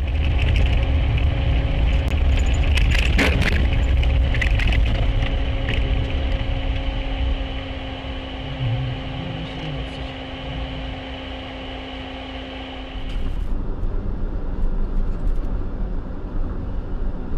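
Vehicle driving noise as picked up by a dashcam inside a car: a steady low rumble with a constant hum over it, and a few sharp clicks about three seconds in. The hum drops out about thirteen seconds in, and the rumble carries on.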